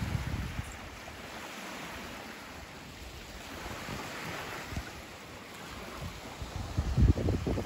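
Small waves lapping on a sandy lakeshore under a steady wind, with wind buffeting the microphone in low gusts at the start and more strongly near the end.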